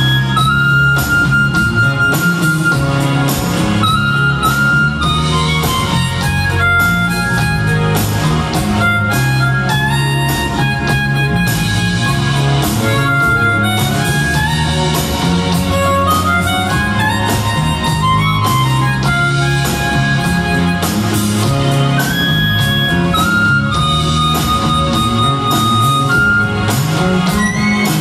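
Live band music: a harmonica carries the melody over electric guitar, bass and drums with hand percussion.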